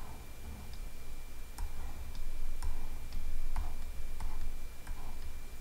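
Sparse light clicks, roughly one a second and irregular, made while straight lines are drawn on a computer, over a low steady hum.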